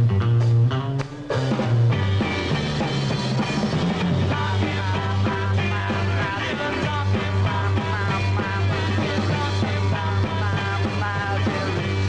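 A 1960s rock band playing loud, fast rock music on electric guitar, bass guitar and drums. The music drops out briefly about a second in, then the band comes back in and a male lead vocal sings over it.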